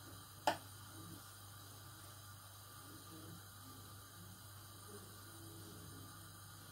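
Low-level room tone with a steady low electrical hum, broken by one sharp click about half a second in.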